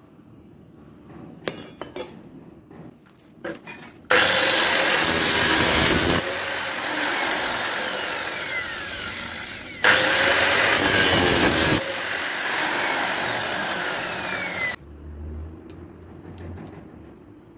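Angle grinder fitted with a chainsaw bar-and-chain attachment running and sawing wood. It starts about four seconds in, is loudest in two stretches, and cuts off sharply near the end, after a few handling clicks at the start.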